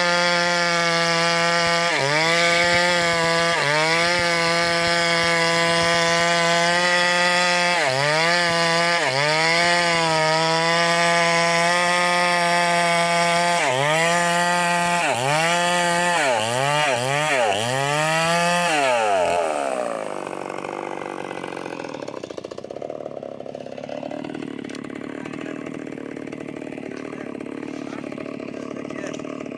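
Eagles 6620 two-stroke chainsaw running at high revs while cutting timber, its pitch dipping and recovering again and again as the chain bites, the dips coming faster toward the middle. About two-thirds of the way in the revs slide down and it drops to a much quieter, rougher sound.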